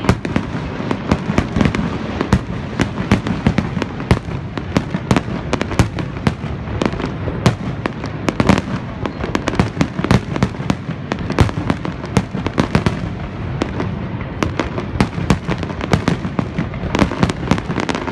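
Fireworks display going off continuously: a rapid stream of bangs and crackles, several every second, over a steady low rumble.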